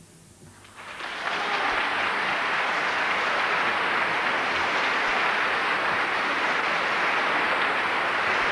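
Large audience breaking into applause about a second in, after the last notes of the orchestra and choir have died away; the clapping rises quickly, then holds steady and dense.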